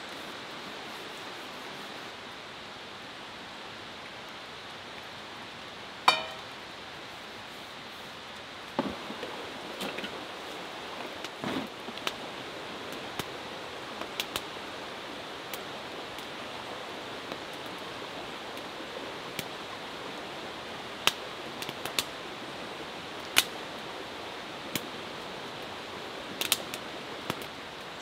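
Wood fire crackling in a fire pit, sharp snaps and pops scattered through over a steady background hiss. One louder sharp clink about six seconds in.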